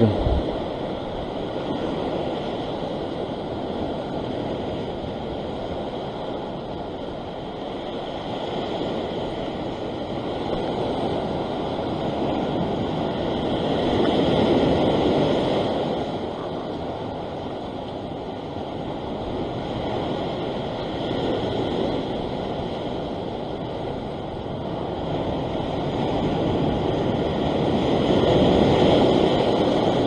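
Ocean surf breaking and washing over a rock ledge: a continuous rush of foaming water that swells louder and fades back as each set of waves comes in, loudest about halfway through and again near the end.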